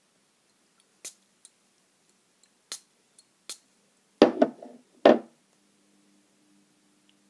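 Handling noises of a pencil turned in the fingers: a few light clicks and taps, then two louder knocks a little past four and five seconds in. A faint steady hum starts just after the second knock.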